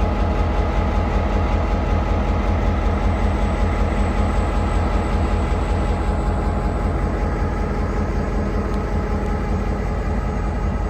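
Diesel locomotive running steadily: a deep, even engine drone with a faint steady whine above it.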